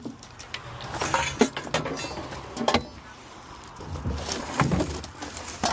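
Loose trash being grabbed and shifted by hand in a steel trailer bed: plastic bags rustling and cans and debris clattering, with scattered knocks and heavier thumps about four seconds in.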